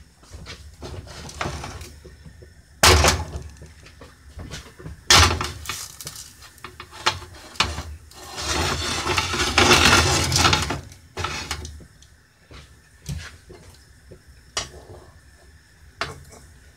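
Kitchen clatter of pots, pans and utensils at the stove: two loud sharp clanks a couple of seconds apart among smaller knocks, then a few seconds of louder hissing noise in the middle.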